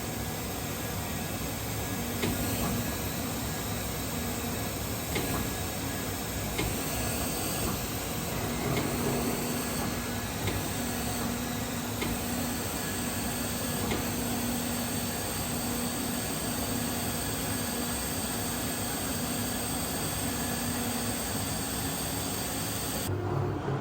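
CNC leather cutting machine running: a steady hiss with a low motor hum that starts and stops in stretches as the head moves, and a few sharp clicks from the tool on the leather.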